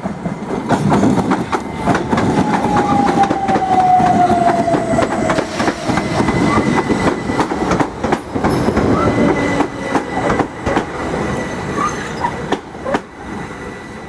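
Class 377 Electrostar electric multiple unit running into the platform, its wheels clattering over rail joints, with a whine that falls steadily in pitch a few seconds in. The noise eases off near the end as the train slows.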